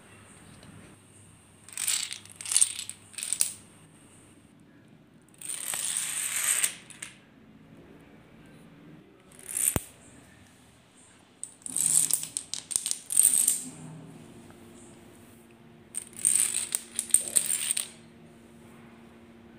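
Chains of toy dominoes toppling on a hard tiled floor: runs of rapid clattering clicks, in five separate bursts of one to two seconds each.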